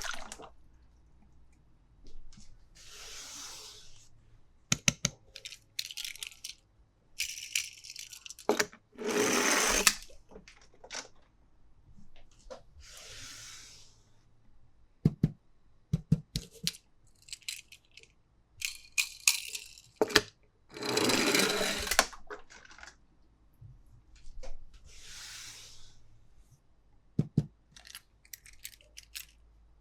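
Toys and their packaging being handled: scattered sharp clicks and taps of small hard toy pieces, with several short bursts of crinkling or tearing packaging.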